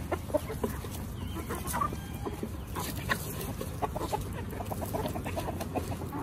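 Domestic chickens clucking around a feed bowl, short calls coming in quick runs, with a fast series about four and a half seconds in.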